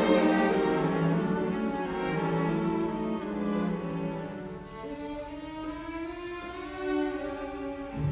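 Background music of bowed strings, violin and cello playing slow held notes that slide between pitches.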